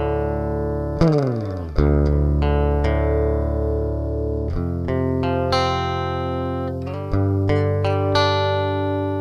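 Instrumental music of sustained, ringing chords, with a falling pitch sweep about a second in and fresh chords struck several times later.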